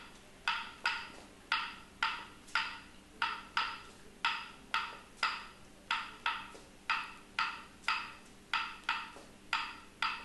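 A pair of wooden claves struck over and over in the son clave rhythm, three strikes and then two, repeating about every two and a half seconds. Each strike is a sharp, ringing click.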